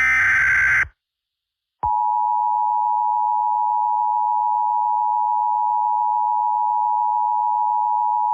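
Emergency Alert System alert tones. First a buzzy digital SAME header data burst ends about a second in. After a short gap, the steady two-tone EAS attention signal (853 and 960 Hz together) starts and holds, which means an emergency message is about to be read.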